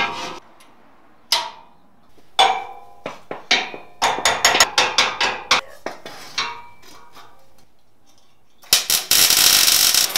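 Metal clanks and clicks as a locking clamp and a steel square are set on a steel bracket, with a quick run of clicks about four seconds in. About nine seconds in, a welding arc strikes and crackles steadily as the bracket is welded.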